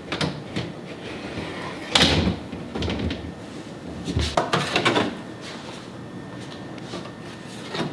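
Refrigerator door bins and food containers being pulled out and set down: a run of clunks and knocks, the loudest about two seconds in and several more together around four to five seconds in.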